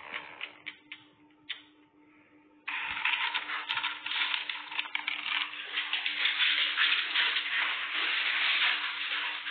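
Dry pet kibble rattling and rustling as a scoop digs into a plastic storage bin: a dense crackling hiss full of small clicks that starts suddenly about three seconds in and goes on.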